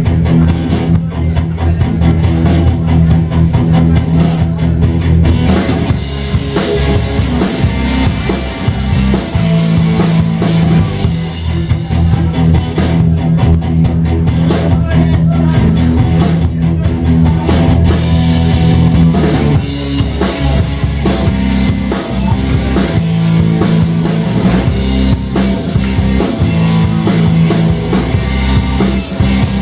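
Live instrumental prog-rock band playing: electric guitar, electric bass and drum kit. The drums get busier with more cymbal about a fifth of the way in.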